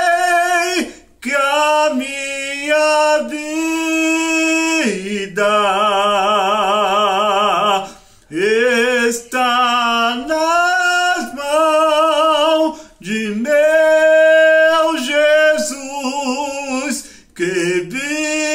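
A man singing a Portuguese gospel hymn unaccompanied, in sung phrases broken by short pauses for breath. A long held note with a wide vibrato comes about a third of the way in.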